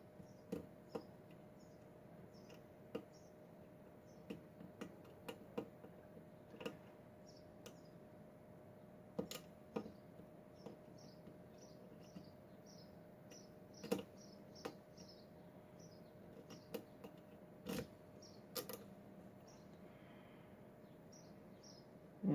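Faint, irregular clicks and ticks of a lock pick and tension wrench working the pins of a Schlage pin-tumbler lock, a few clicks every couple of seconds. Behind them runs a faint series of short high chirps.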